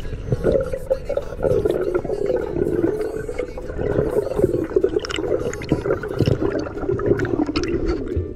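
Underwater sound picked up by a diving camera: water moving and gurgling around the housing, with a wavering low hum and scattered clicks.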